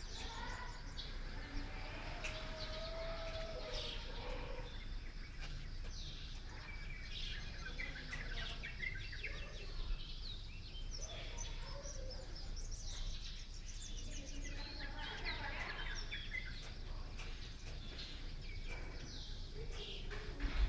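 Many small birds chirping and trilling together in a morning chorus, with short quick calls overlapping throughout. A steady low rumble runs beneath.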